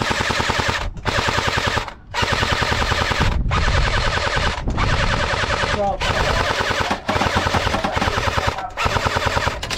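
Airsoft electric gun firing a string of full-auto bursts, each about one to two seconds long, with short breaks between them.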